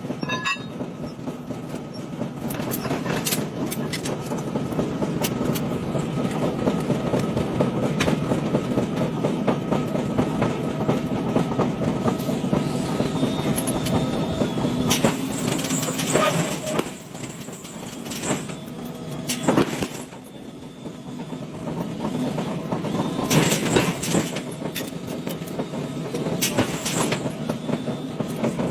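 Machinery noise in an alloy-wheel forging plant: a steady mechanical rumble with metal clanks and bangs every few seconds.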